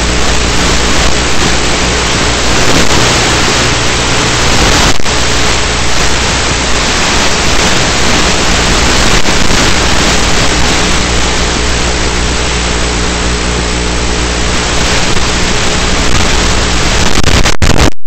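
An RC plane's electric motor and propeller running at a steady throttle, heard from the plane's onboard camera, with a loud rush of wind over the microphone. The sound cuts out briefly near the end.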